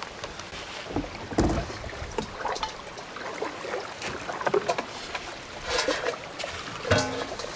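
Footsteps, rustles and scattered light knocks as gear is carried to and handled around a plastic kayak, with a few louder clatters near the end.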